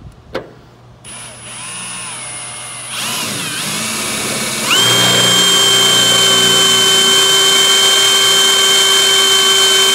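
Cordless drill boring a small pilot hole: the motor starts about a second in, speeds up in two steps, and from about five seconds in runs steady with a high whine.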